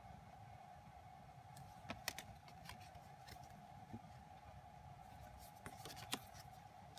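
Faint handling of thin card album inserts, photo cards and a postcard: a few light clicks and taps as the cards are shifted, a cluster about two seconds in and two more near the end, over a steady faint hum.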